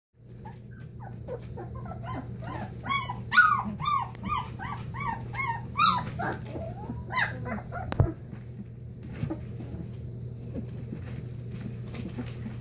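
Newfoundland puppies about two and a half weeks old whimpering and yipping, a quick run of short rising-and-falling cries in the middle, while waiting to be fed. A single sharp knock comes about eight seconds in.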